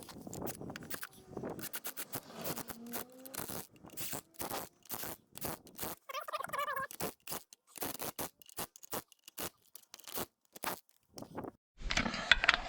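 Irregular clinks, taps and scrapes of metal tractor parts and tools being handled during rear axle and brake assembly, with a brief wavering squeak about six seconds in. Near the end a louder low rumble begins.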